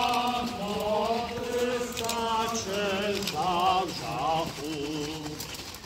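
Group of men singing a hymn together in slow, long held notes with a wavering pitch: the Easter riders' processional singing.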